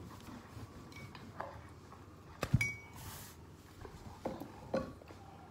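A glass mug clinks sharply once about two and a half seconds in, with a brief high ring, among a few quieter small knocks as a child drinks from it.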